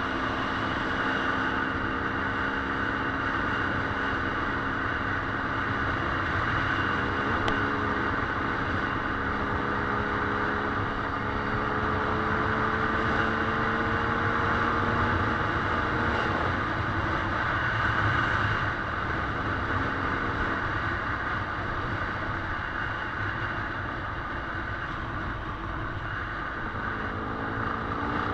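Dirt bike engine running on a trail ride, its pitch rising and falling gently with the throttle over a steady rushing noise.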